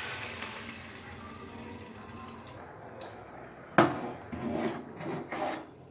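Metal cookware being handled: a few light clinks and knocks of a spoon against the pans, with one sharp clank just before four seconds in, the loudest sound.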